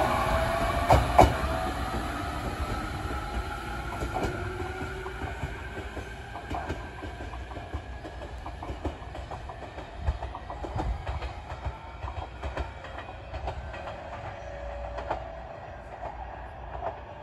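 JR Kyushu 817 series electric train pulling away: its motor whine rises in pitch as it gathers speed, with irregular clicks of the wheels over rail joints, and the whole sound fades steadily as the train draws off into the distance.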